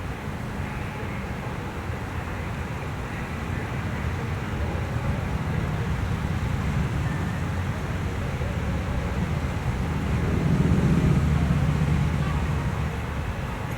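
Road traffic rumbling steadily, with a vehicle passing louder about ten to twelve seconds in.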